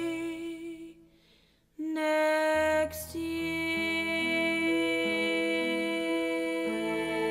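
Slow, soft instrumental music of held chords. The first chord fades almost to silence about a second in, then a new chord comes in just under two seconds in and is held, changing gently under a steady melody note.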